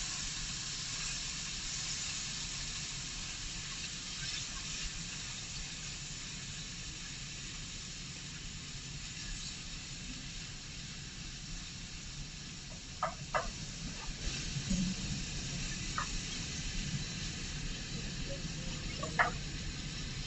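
Turkey meat sizzling as it browns in a hot skillet with olive oil, a steady frying hiss. A wooden spoon knocks and scrapes against the pan a few times in the second half, loudest near the end.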